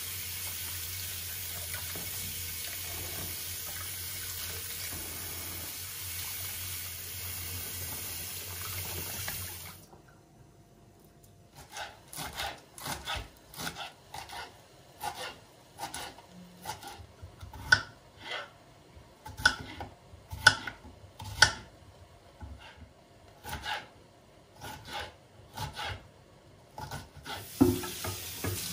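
Kitchen tap running steadily for about ten seconds, then a knife chopping lettuce on a wooden cutting board in quick, irregular strokes; the tap runs again near the end.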